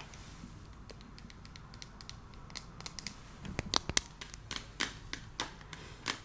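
Scattered soft clicks and light taps from hands handling a cardboard makeup advent calendar and its small product packaging. The sharpest clicks come about three and a half to four seconds in.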